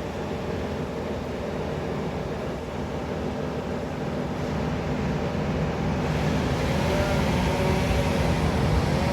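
A motor running steadily, getting a little louder about six seconds in, with its pitch rising and falling twice near the end.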